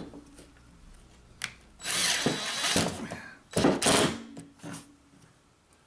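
DeWalt cordless impact driver driving a screw through ceiling drywall into a plywood nailer. It runs in two spurts: a longer one about two seconds in and a short one about a second later as the screw seats, just dimpling the paper.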